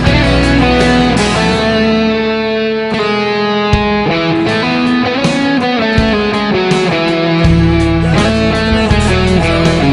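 Background music: electric guitar with a steady beat, the bass dropping out for a few seconds in the middle.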